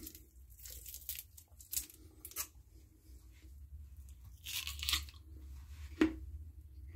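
Eating a frozen freezer pop from its plastic sleeve: scattered short crunches of biting into the ice, with crinkling and tearing of the plastic. The longest crunch comes a little after the middle, and a sharp click follows near the end.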